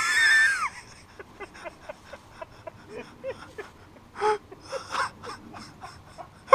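A man's laughter: a loud high-pitched squeal at the start, then short breathy, wheezing giggles and gasps.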